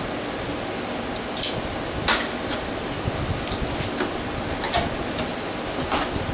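Cardboard box top being pulled open by hand: a handful of short, sharp cardboard snaps and crackles spread over a few seconds, against a steady background hum.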